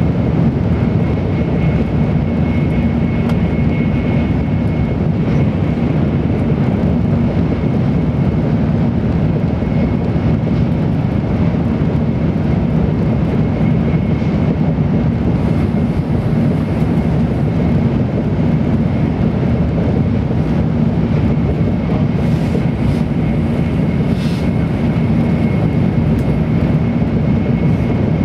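Steady running noise inside the passenger car of an N700-series Tokaido Shinkansen train at speed: an even low rumble with a faint, high, steady tone above it.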